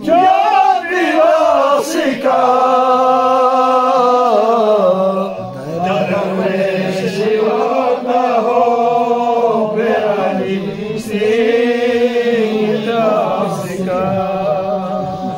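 A group of men chanting a Purig qasida in unison without instruments, one lead voice on a microphone. The long, slowly wavering held phrases are broken by short breaths about every three to four seconds.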